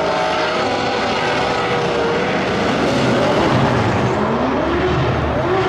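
Drift cars' engines revving hard, the pitch climbing and falling as they slide, over a dense rushing noise.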